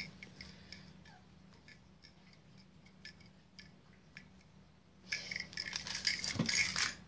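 A bunch of keys on a lanyard being handled. Faint scattered clicks at first, then about five seconds in a busy jangling and clinking that lasts about two seconds.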